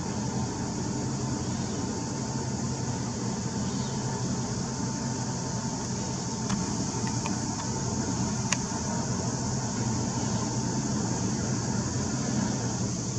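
Steady low drone of a cruise ship's engines and propellers running as the vessel holds stern-to against the quay, with a steady high hiss above it and a few faint clicks about halfway through.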